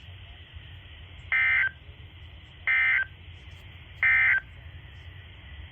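Three short, identical bursts of the Emergency Alert System's digital SAME data tones from a NOAA Weather Radio broadcast, about a second and a half apart: the end-of-message signal that closes the alert. A faint steady radio hiss and hum runs between the bursts.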